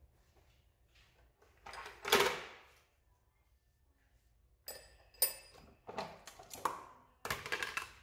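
Steel ball bearings, chilled for a shrink fit, clinking and knocking against each other in a plastic tub as they are picked out by hand: a string of short metallic knocks with a brief ring, most of them in the second half. A louder scraping noise comes about two seconds in.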